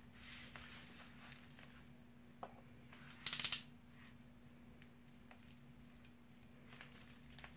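Bubble wrap around a boxed phone crinkling softly in the hands, with a few light clicks, then a yellow box cutter slitting the plastic wrap. The loudest sound is a short, sharp crackle about three seconds in.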